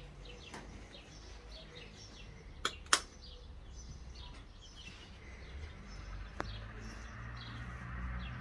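Small birds chirping repeatedly in short falling notes, with two sharp clicks about three seconds in and a fainter one a few seconds later. A low rumble builds near the end.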